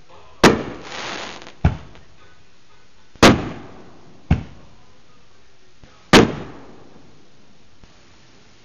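Consumer aerial fireworks going off: five sharp bangs over about six seconds. The three loudest each trail off with a long echo, and a hissing crackle follows the first.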